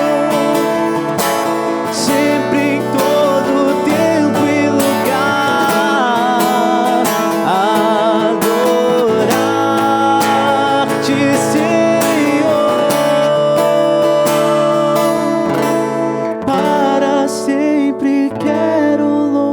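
Slow devotional worship music led by acoustic guitar, with a melody of long, wavering notes over it. It thins out near the end.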